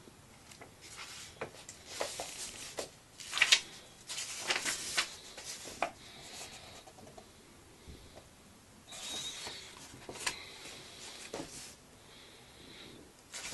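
Pages of a book being turned and flipped by hand: paper rustling and swishing in irregular bursts with a few sharp flicks, loudest a few seconds in, with quieter pauses between.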